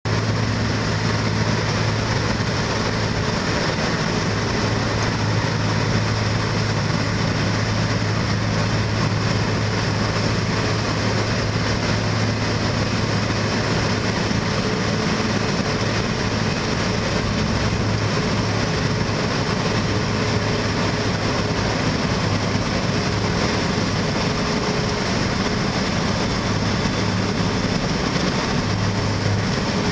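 An asphalt milling machine cutting the road surface: a heavy diesel engine runs under load with a steady low hum, under the dense, even grinding of the cutting drum and conveyor carrying the millings.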